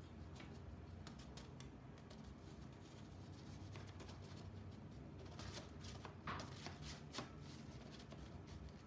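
Faint handling noises, light clicks and rustles, over a low steady room hum, with a short cluster of sharper ticks about five to seven seconds in.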